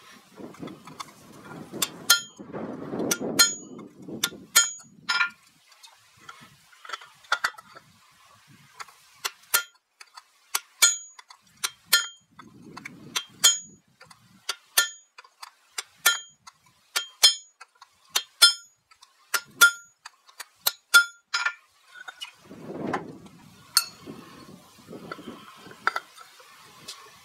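Blacksmith's hammer striking steel on an anvil while forging an axe head: sharp, irregular blows at roughly one a second with short pauses, each leaving a bright metallic ring.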